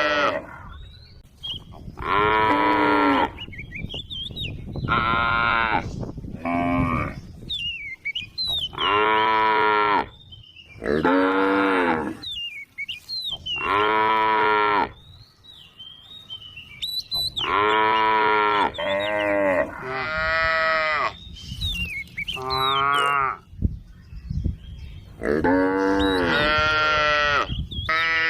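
Cows mooing again and again: about ten short calls, each roughly a second long, coming every two to three seconds.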